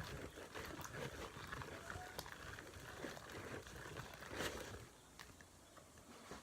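Home-made slime being squished and kneaded: irregular wet squelches and sticky clicks that die down after about five seconds.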